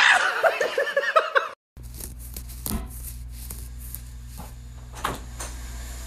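A loud, pulsing burst of a person's voice that cuts off about a second and a half in. It is followed by a steady low hum of room tone with a few faint knocks.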